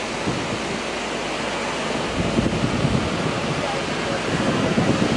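Wind blowing across the microphone: a steady rushing noise with low gusts.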